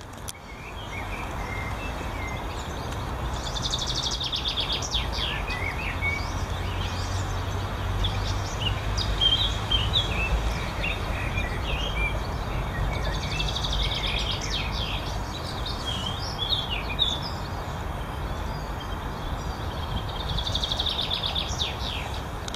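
Songbirds singing in a garden: scattered chirps and calls, with one bird repeating a fast trilled phrase three times. Under them runs a steady low rumble of distant city traffic.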